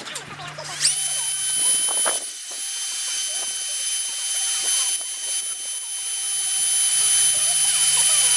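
An electric drill spins up about a second in and runs at a steady speed, a high, even whine that grows gradually louder.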